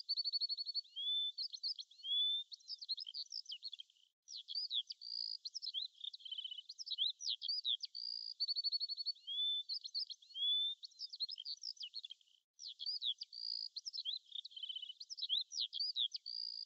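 Birdsong, several birds chirping with quick trills and short rising whistles, cut off sharply above and below as a filtered recording, repeating about every eight seconds with two short breaks.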